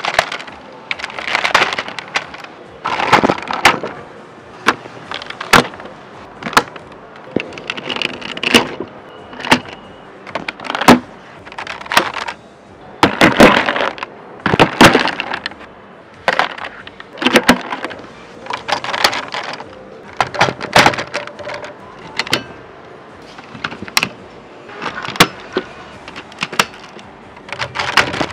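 Hard plastic parts of a combining robot toy clicking, snapping and clacking together as they are handled and fitted into place, in irregular clusters of sharp clacks with short rattles between.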